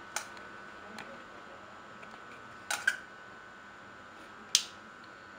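A metal spoon clicks sharply against a plate several times as tamarind chutney is spooned onto the chaat; the loudest clicks are a quick double click in the middle and a single one near the end. A steady faint hum runs underneath.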